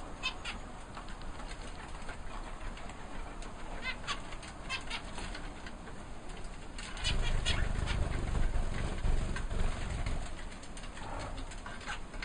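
Aviary birds giving short, scattered chirps, with a low rumbling noise from about seven seconds in that lasts a few seconds.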